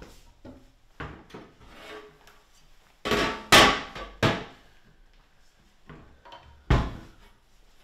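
A metal roasting pan handled at a kitchen sink and counter: light knocks, then loud scraping and clattering against the sink for about a second, and a single solid thump as it is set down near the end.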